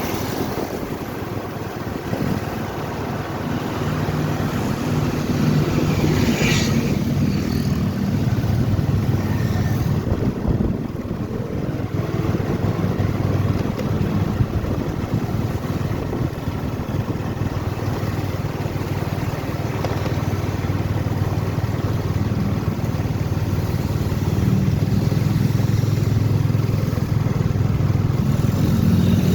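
Motorcycle engine running steadily on the move, with a brief hiss about six and a half seconds in.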